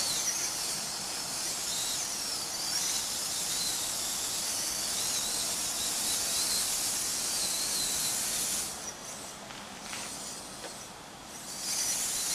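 Steady high-pitched outdoor hiss with faint wavering chirps through it; the hiss drops away for about three seconds near the end, then comes back.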